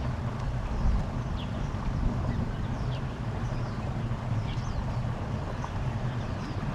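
Steady low wind rumble on the microphone, with short high chirps scattered through it, a few each second.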